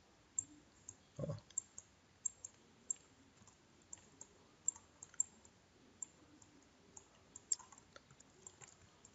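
Faint, irregular clicking from a computer mouse being worked, about two clicks a second, with a brief low thump about a second in.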